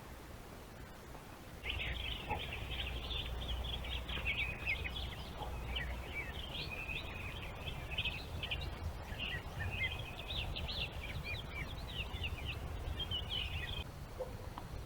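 Songbirds chirping in a busy, continuous run of short high notes. They start about a second and a half in and stop about a second before the end, over a low rumble.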